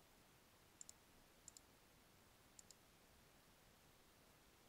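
Three faint computer-mouse clicks, each a quick double tick, in the first three seconds over otherwise near silence.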